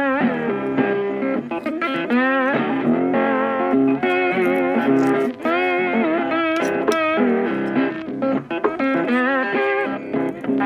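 Background music: a melodic electric guitar line with bent, vibrato notes over sustained chords.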